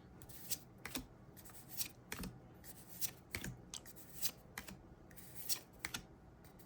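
Gundam trading cards being flipped through by hand, a string of short, soft card-on-card flicks and slides at an uneven pace.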